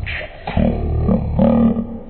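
Heavily slowed-down audio: deep, drawn-out low tones in stretches of a few tenths of a second, with a short break about a third of a second in.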